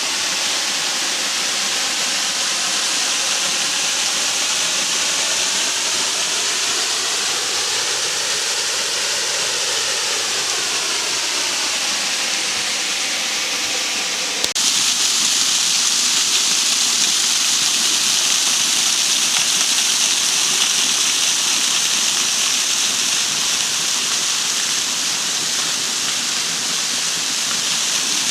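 Waterfall rushing, a steady loud noise of falling water. About halfway through it changes abruptly to a louder, brighter rush.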